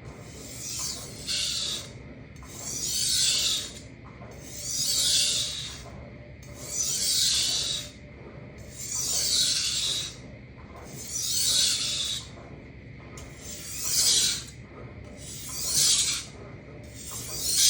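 Kitchen knife edge stroked freehand across a Shapton Kuromaku 1000 water stone, a hissing scrape about every two seconds in an even rhythm.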